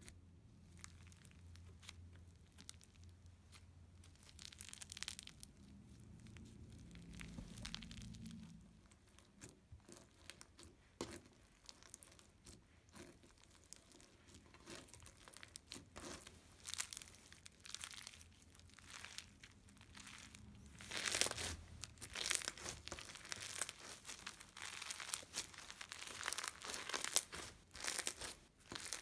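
Butter slime being handled: pressed, stretched and pulled apart. It makes soft crackles, pops and tearing sounds that become denser and louder about two-thirds of the way through.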